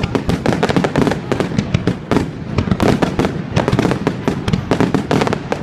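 Fireworks going off in a dense, unbroken barrage: many sharp bangs and crackles a second, overlapping irregularly.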